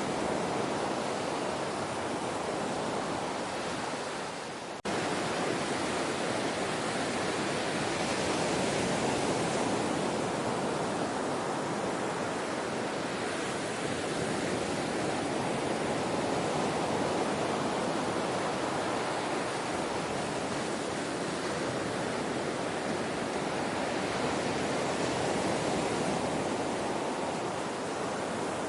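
Ocean surf washing steadily. The sound dips briefly about five seconds in, then cuts back in suddenly.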